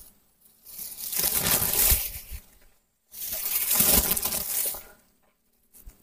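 Leaves and branches rustling in two bursts of about two seconds each, with a dry crackle.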